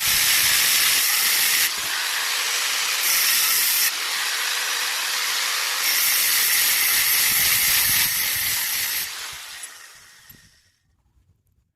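A loud, steady hiss that jumps abruptly up and down in level several times, then fades out near the end.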